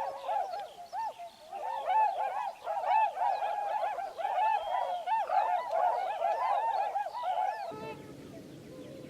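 A large flock of waterbirds calling together: many short rise-and-fall calls overlapping in a dense chorus. Near the end the chorus stops abruptly, and a steady, lower rushing noise takes over.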